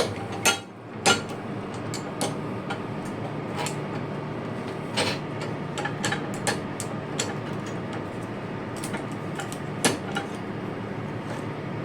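Scattered light clicks and knocks of a steel wire-rope splice being handled and turned over, metal tapping against metal, over a steady low hum.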